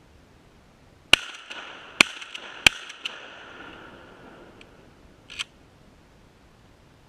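Three shotgun shots in quick succession, a little under a second apart, each followed by a ringing echo that dies away over about two seconds, then a single fainter click a few seconds later.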